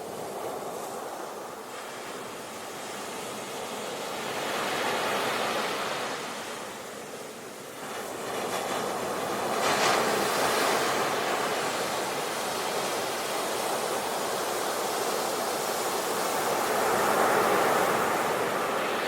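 Sea waves breaking and washing ashore in a continuous rush that swells and ebbs three times, with a sharp surge about eight seconds in rising to the loudest crash near the middle.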